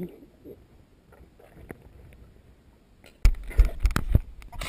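Faint, muffled sound through a waterproof action camera underwater in a swimming pool. About three seconds in, loud water sloshing and knocking against the camera housing starts suddenly as the camera sits at the water's surface.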